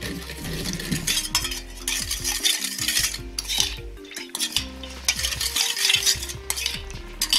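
A metal spoon stirring a thin liquid seasoning sauce in a stainless steel bowl. The spoon scrapes and clinks against the bowl's sides in quick repeated strokes.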